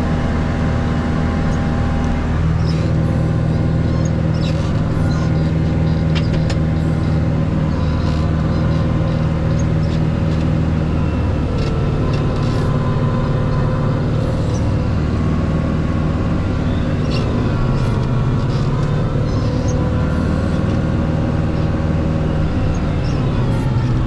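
Tractor engine running hard to drive a tractor-mounted eight-foot Farm King snowblower, heard from inside the cab. Its pitch sags at times as the blower bites into heavy, wet snow and loads the engine down.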